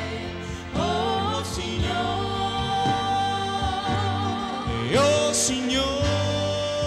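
Live gospel worship song: a voice sings long held notes with vibrato, sliding up into a new note about a second in and again around five seconds, over keyboard and band accompaniment with a steady beat.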